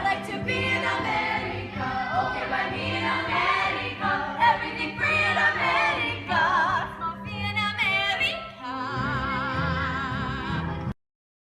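Singing with strong vibrato over musical accompaniment, cutting off suddenly near the end.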